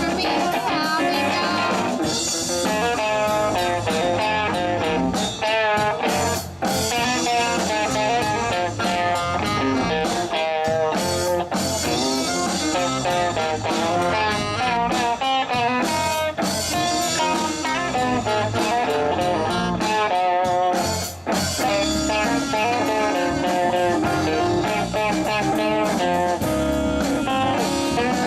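Live blues band playing an instrumental passage with no singing, electric guitar to the fore, briefly dropping out about six and a half and twenty-one seconds in.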